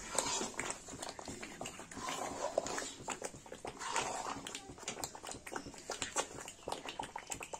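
A ladle stirring and scraping thick masala paste in a large metal pot as the paste fries: a run of quick scraping clicks over a low sizzle, with a rougher scrape about every two seconds.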